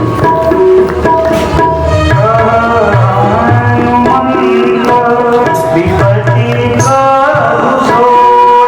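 Devotional music: tabla playing a beat under sustained melodic notes that step from pitch to pitch.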